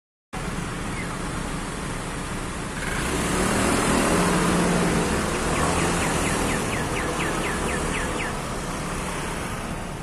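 Steady rumble of road traffic that swells for a couple of seconds a few seconds in. About halfway through, a caged red-crested cardinal gives a quick run of about a dozen short falling chirps, some five a second, lasting about three seconds.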